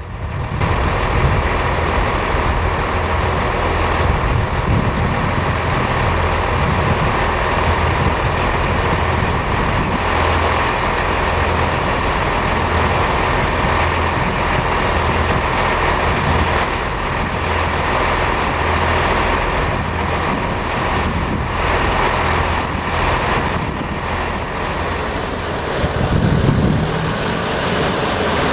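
Class 121 diesel multiple unit's underfloor diesel engines running, a steady low drone with a broad mechanical rumble, swelling slightly near the end.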